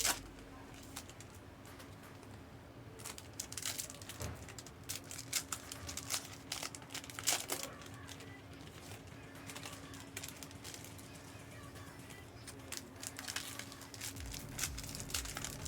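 Trading-card pack wrappers crinkling and rustling in irregular bursts as packs are handled and opened.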